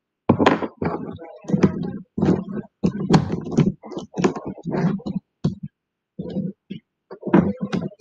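Plastic Rubik's cube pieces clicking and knocking as they are pushed back into the cube's core and handled against the table during reassembly: an irregular run of short clicks and knocks with a pause about six seconds in.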